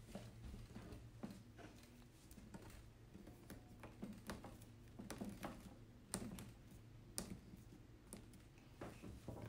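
Faint, scattered clicks and taps of plastic parts being handled as a red connector is fitted onto the watering pipe of a plastic grow-out pen, over a low steady hum.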